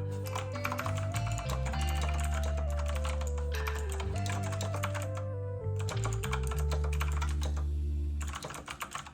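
Background music with a stepping melody and steady bass notes, over rapid typing on a computer keyboard. The music stops about eight seconds in while the typing goes on.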